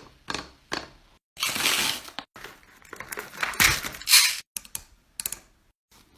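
Crunching and crackling from a fidget toy being squeezed and handled: a few short crackles, two longer bouts of crunching, then a few more crackles near the end.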